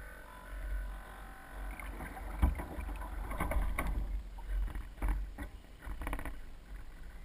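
Small waves slapping and splashing against the hull of a Soling 1 meter model sailboat under sail, in irregular bursts with a sharp knock about two and a half seconds in, over a low wind rumble on the deck-mounted camera.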